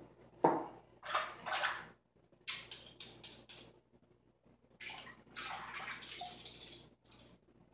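Water running and splashing in a bathroom sink in several short bursts, each starting and stopping suddenly.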